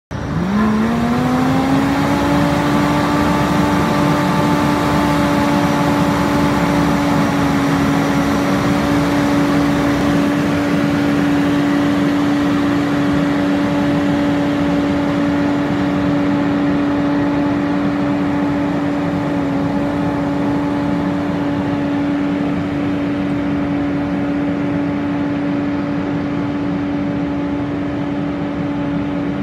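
Tractor-drawn air-blast orchard sprayer running, its fan giving a loud, steady whine that rises to pitch over the first two seconds and then holds, over the rush of the air blast.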